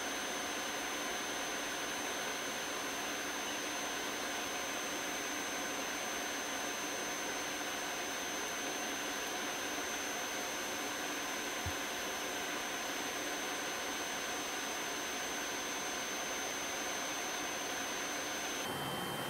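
Electric nail drill (micromotor handpiece with a cone-shaped burr) running steadily with a high whine as it grinds down a thickened, fungus-infected toenail. Near the end the whine drops abruptly to a lower pitch.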